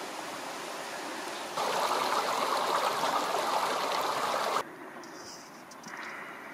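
Water running along a narrow stone-lined irrigation channel, a steady rushing that grows louder for about three seconds in the middle, then drops away suddenly to a quieter outdoor background.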